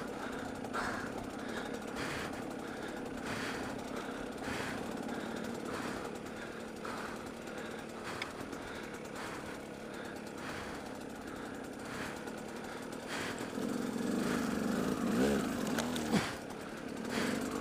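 Off-road motorcycle engine chugging along at low speed over rough ground. It revs up and back down briefly a few seconds before the end.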